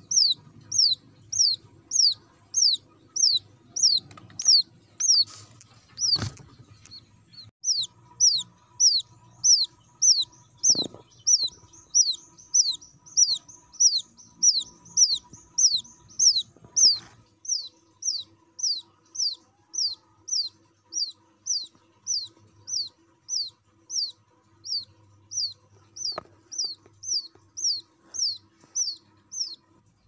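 Wild quail chick peeping repeatedly, about two high, falling peeps a second: a lone chick calling for its mother.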